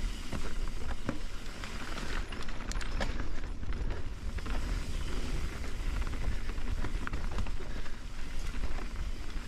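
Mountain bike rolling fast down a dirt singletrack: steady tyre and trail rumble with wind on the microphone, and scattered clicks and rattles from the bike over roots and rocks.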